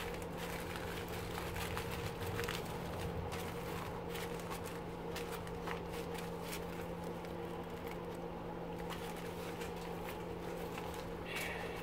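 Loose copper motor-winding wire crinkling and rustling in small irregular clicks as gloved hands crush it into a ball, over a steady low hum.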